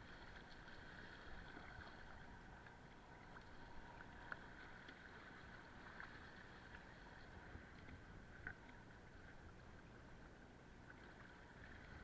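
Near silence: a faint low rumble of wind and water around a small paddled boat, with a few soft knocks scattered through.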